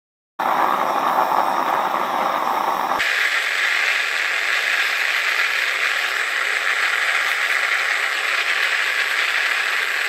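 Steady rushing noise of a homemade metal-melting furnace running. About three seconds in it switches abruptly to a higher-pitched rush.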